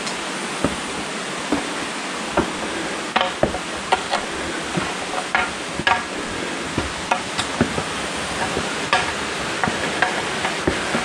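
Steady rushing hiss of a mountain stream, with irregular sharp taps and scuffs of footsteps on stone steps, roughly one a second.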